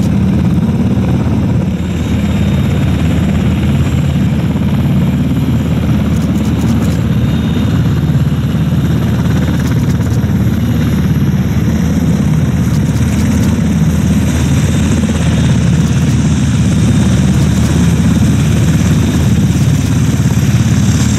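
Boeing KC-767 tanker's twin turbofan engines as it lands and rolls out on the runway: a loud, steady, deep rumble.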